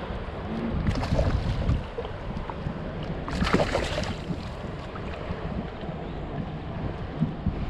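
Wind rushing over the microphone and water washing against a kayak's hull, with two louder rushes, about a second in and about three and a half seconds in.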